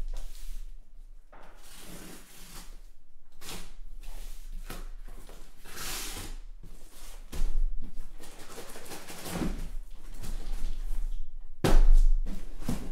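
A cardboard shipping case being opened by hand: packing tape slit with a knife, then cardboard flaps and boxes scraping and rustling in a run of swishes. A sharp thump near the end as the case is turned over and set down on the table.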